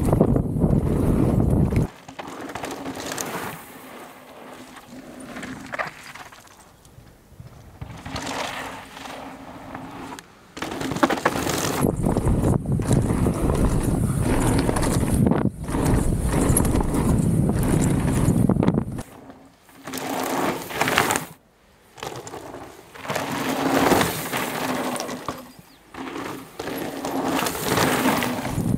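Atherton AM200 mountain bike ridden fast down a loose gravel trail: tyres rolling and crunching on the dirt while the frame and chain rattle over the rough surface, with wind buffeting the chest-mounted camera's microphone. The noise rises and falls with the terrain and drops away for moments several times in the second half.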